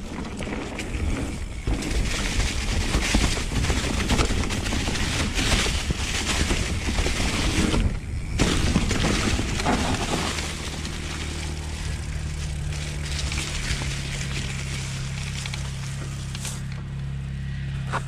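A mountain bike rolling fast down a dirt trail strewn with dry leaves: tyre noise and wind buffeting the rider-worn camera's microphone. The sound is loud and rough for the first ten seconds or so; after that it eases and a steady low hum joins in.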